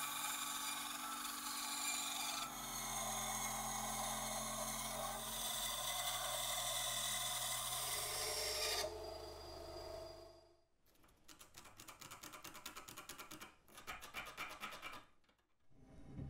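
Bandsaw running and cutting through a wooden handle blank, with a steady motor hum under the cutting noise. The cut eases near nine seconds and the saw stops about ten seconds in. Several seconds of rapid, even scraping strokes on wood follow.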